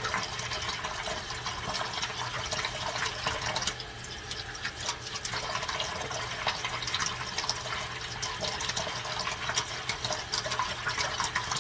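Tap water running while a plastic eyeglass lens is wet-sanded by hand with 3000-grit sandpaper, a fine scratchy rubbing mixed into the water noise. It goes briefly quieter about four seconds in.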